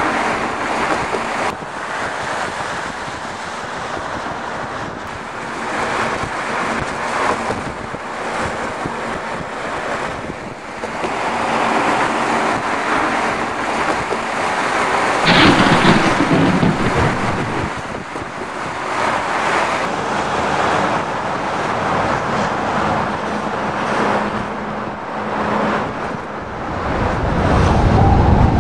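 Storm soundscape of wind gusting in surges, with a faint steady hum underneath. A sudden loud crash comes about halfway through, and a low rumble swells near the end.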